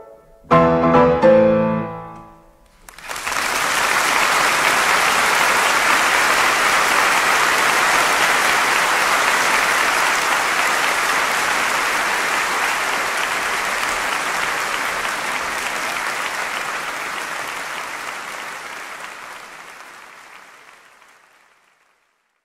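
A piano's closing fortissimo chords end the piece and die away. About three seconds in, an audience breaks into steady applause for the end of the live performance, which gradually fades out near the end.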